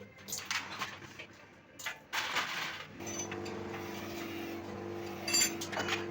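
A few metallic clinks and short bursts of noise, then about three seconds in a machine starts and runs with a steady hum.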